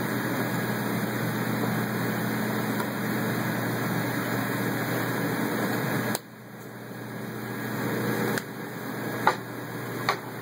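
CNC router running with a steady whirring hum. It drops off abruptly about six seconds in, then builds back up, with two sharp clicks near the end.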